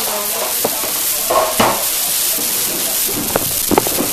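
Steady hiss with scattered crackles and clicks from plastic toy packaging being handled.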